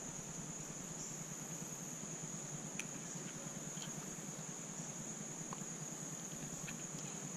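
Steady high-pitched chirring of insects, a constant chorus with a few faint clicks.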